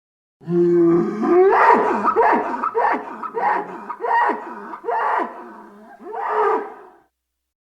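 Dinosaur sound effect for Polacanthus: a run of about eight short pitched animal-like calls, each bending up and down in pitch, coming quickly at first and then more spaced out before stopping.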